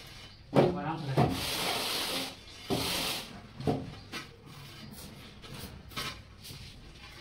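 Steel trowel scraping and spreading wet cement mortar in several strokes, the longest about a second in and another near the middle, then lighter short ones.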